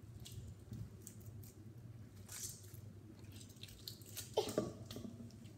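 Homemade glue-and-laundry-detergent slime being kneaded and stretched by hand: soft, sticky squishing with small clicks and pops. One louder, short squelch about four and a half seconds in.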